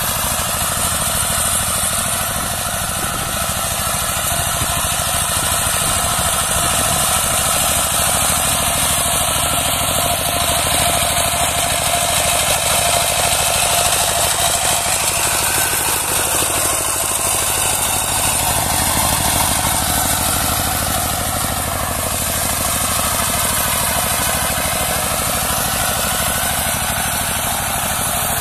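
A two-wheel power tiller's single-cylinder diesel engine runs steadily under load while its rotary tiller churns dry soil, a continuous rapid chugging clatter.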